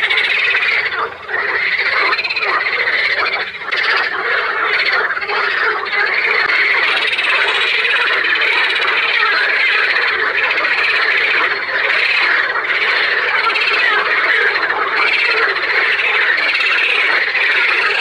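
A dense chorus of many frogs croaking at once, their overlapping calls running together without a break.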